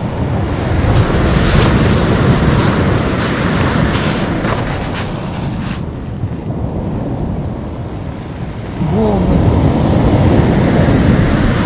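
Wind buffeting the microphone over the rush of sea waves breaking on a shingle beach, with a few crunches of footsteps on the pebbles.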